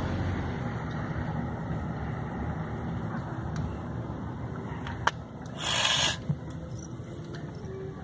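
Steady low hum of a car's engine and tyres, heard from inside the cabin while driving slowly. There is a sharp click about five seconds in and a brief rush of noise just before six seconds.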